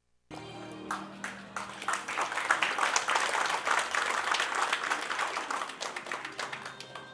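Audience applauding, swelling over the first couple of seconds and slowly dying away toward the end.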